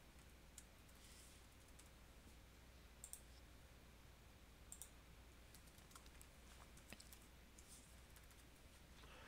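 Near silence, with a few faint, scattered clicks of a computer mouse and keyboard.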